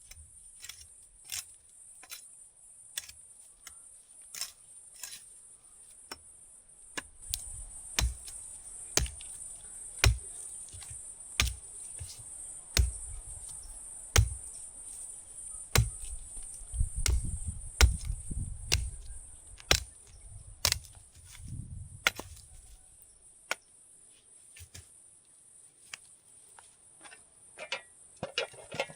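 Steady high-pitched insect chirring, with sharp knocks about once a second and some low thuds in the middle.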